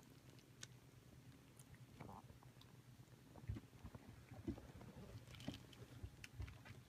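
Faint cat purring, a low steady rumble, with soft wet clicks and smacks of a cat licking a kitten's fur while grooming it.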